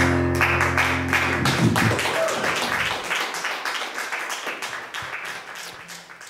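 Audience applauding as the last chord on a Kurzweil stage piano dies away in the first two seconds; the clapping then thins out and fades near the end.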